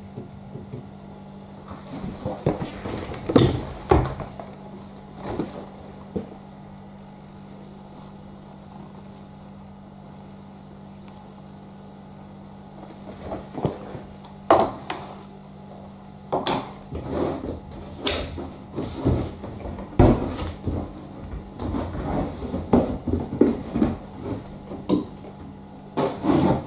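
Plastic clicks and knocks of a Beko front-loading washer-dryer being loaded: the door pushed shut, the detergent drawer pulled out, and a tub of detergent pods handled. The knocks come in a cluster a few seconds in, pause for several seconds, then come thick and irregular for the rest of the time, over a faint steady low hum.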